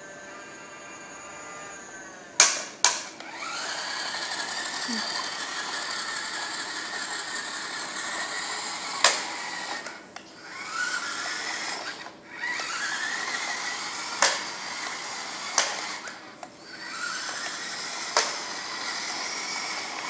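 Toy radio-controlled bulldozer's small electric motors and gearboxes whirring as it drives and works its blade, each run starting with a rising whine and cutting off again, about five times. Several sharp clicks or knocks come between the runs.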